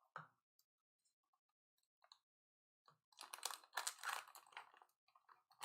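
Faint scattered clicks, then about three seconds in a denser run of quick, irregular clicking and crackling lasting about two seconds.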